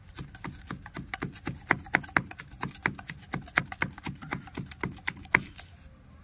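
Metal rod ramming powdered sugar rocket fuel down into a white plastic pipe standing on a tiled floor: quick repeated knocks, about four a second, packing the fuel dense. The knocks stop shortly before the end.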